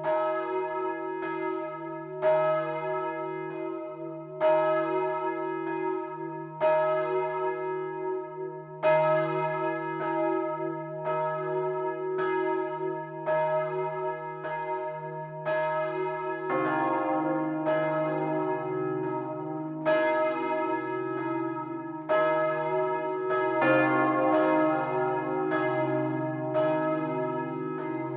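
Two swinging bronze church bells, a 1,985 kg Paccard bell of 1885 sounding C3 and a 1,140 kg Wauthy bell of 1922 sounding E-flat 3, ringing together in full peal, heard close up in the belfry. Their strokes interleave about once a second, each hum ringing on into the next, and the deeper bell's tone comes through stronger a little past halfway.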